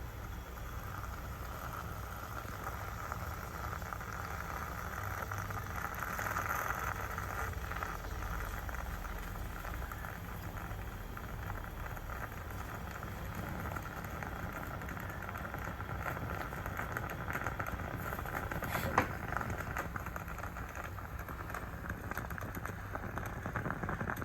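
Stainless steel moka pot on the heat, hissing and bubbling as the hot water is pushed up through the coffee into the top chamber. There is a single sharp click about three-quarters through.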